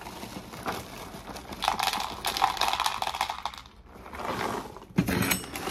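Dry Magic Spoon cinnamon cereal pieces poured into a bowl: a rattling patter of many small pieces, heavier a second and a half in, then a short pause and a briefer pour, with a short clatter near the end.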